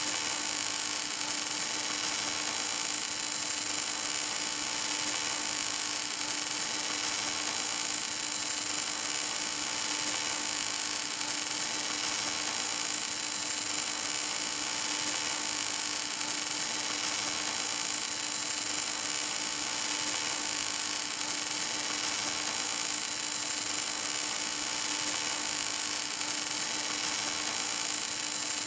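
Arc of an automatic pipe welding machine burning steadily on a steel pipe joint: an even hiss with a steady hum under it, unchanging throughout.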